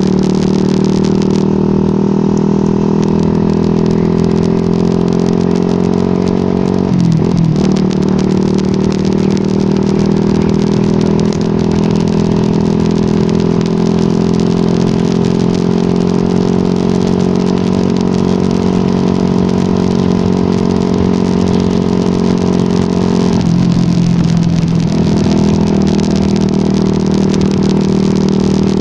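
Yamaha R15 V2's 150 cc single-cylinder engine running steadily at cruising revs while being ridden. Its note dips briefly about seven seconds in and again a few seconds before the end.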